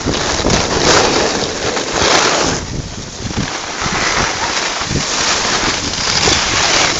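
Wind buffeting the microphone of a camera carried by a skier moving downhill, mixed with the hiss of skis sliding over packed snow; the noise swells and dips unevenly.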